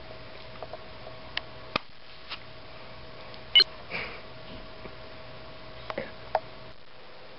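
A wooden stick being pushed into an apple, with handling noise: scattered small clicks and taps, the loudest a short sharp one about halfway through. A faint steady hum runs underneath.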